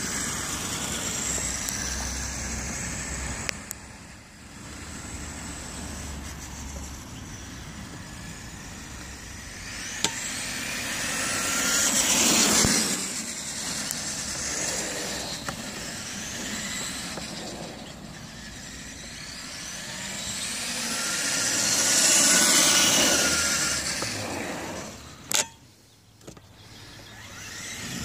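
Traxxas E-Revo RC monster truck with a brushed electric motor drive running on asphalt. Its motor and gear whine rises and falls as it speeds up and slows, over tyre noise, and it grows loudest twice as the truck passes close. There is one sharp click near the end.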